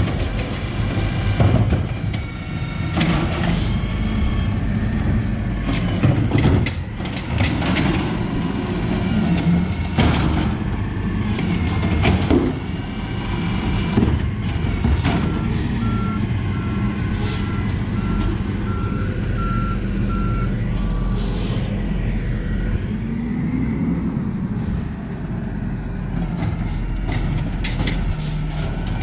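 Automated side-loader garbage truck at work: the diesel engine runs under whining glides from the hydraulic arm and repeated bangs as carts are lifted, dumped and set down. About halfway through, a string of reversing beeps sounds for several seconds.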